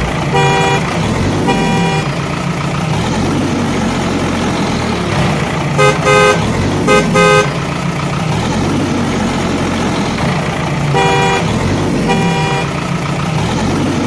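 A truck horn honking over a running engine: two honks near the start, a quick cluster of short toots about six to seven seconds in, and two more honks near the end.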